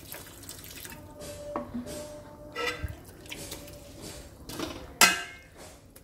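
Slotted metal spatula stirring a thick, wet prawn pickle mixture in a wide metal pan, scraping and clinking against the pan, with one loud clang about five seconds in.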